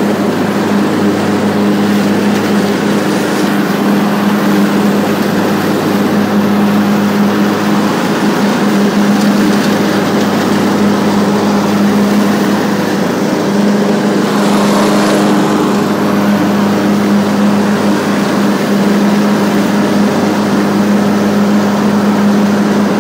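Craftsman LT2000 riding lawn tractor's engine running steadily at an even pitch while mowing, with the mower deck engaged. There is a brief rush of noise about two-thirds of the way through.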